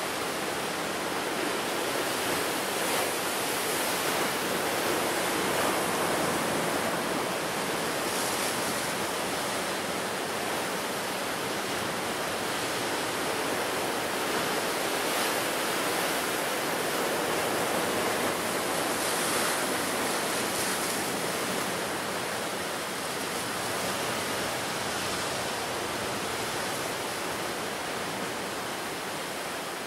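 Ocean surf breaking on the shore: a continuous rushing wash that swells and eases as each wave comes in.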